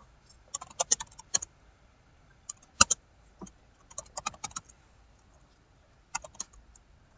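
Computer keyboard typing in several short bursts of keystrokes with pauses between them.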